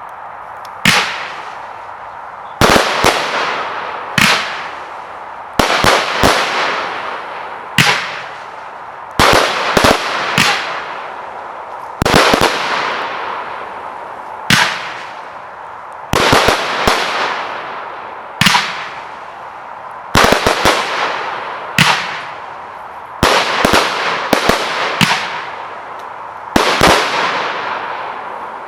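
Celtic Fireworks Tremor firework going off: a string of loud bangs, one to three at a time every second or two, each trailing off in a fading hiss.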